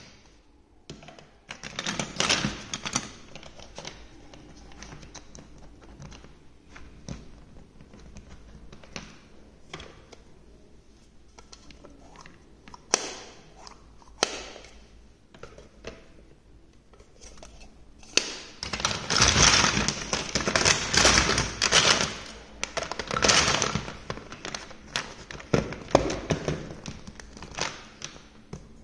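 Large plastic toy building blocks and marble-run pieces clattering and knocking together as hands rummage through a pile of them: irregular taps and clicks, with a short burst of dense rattling near the start and a longer spell of louder rattling in the second half.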